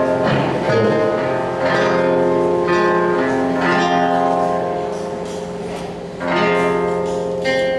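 Music played on guitar and bowed strings: sustained chords with a new one struck every second or so.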